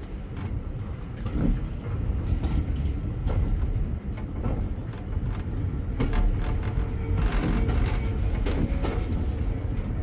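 Railway passenger carriage rolling slowly along a platform: a steady low rumble with irregular clicks and knocks from the wheels and running gear, which come more often in the second half.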